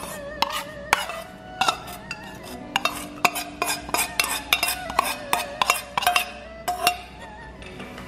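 Metal spoon clinking and scraping against a small metal bowl as thick spicy hotpot paste is scooped out, an irregular run of sharp clicks that stops about a second before the end.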